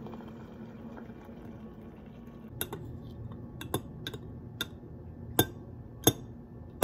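Hot water poured from an electric kettle into a glass mug, then a metal teaspoon stirring tea in the glass and clinking against its sides several times, the last few clinks the loudest.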